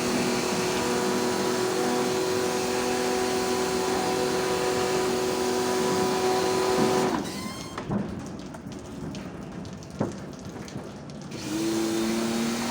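Electric motor of a cleaning machine running with a steady hum and whine. It stops about seven seconds in, a few knocks follow while it is off, and it starts again near the end.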